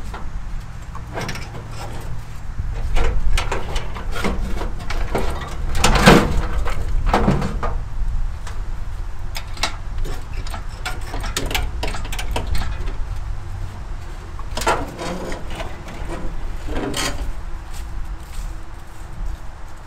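Hydraulic engine hoist being pumped by hand to lift an old Dodge flathead six engine on its chain: irregular metal creaks, clicks and clunks, with a few louder ringing clanks about six and seven seconds in and again around fifteen and seventeen seconds, over a steady low rumble.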